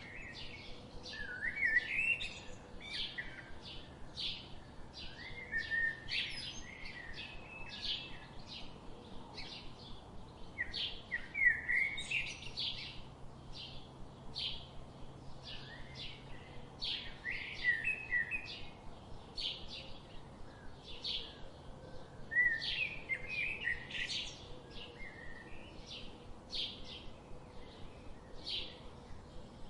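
Songbirds calling: a steady run of short, high chirps, two or three a second, with a longer warbling song phrase breaking in about every five seconds.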